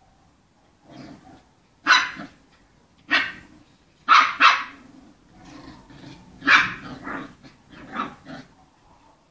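Puppies barking as they play: about eight short, sharp, high barks in quick bunches, with quieter low sounds between.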